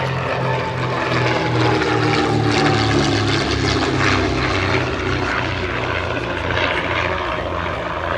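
De Havilland DH88 Comet racer's twin de Havilland Gipsy Queen piston engines flying past. The engine note drops steadily in pitch as it passes, with a pulsing throb underneath, loudest a few seconds in.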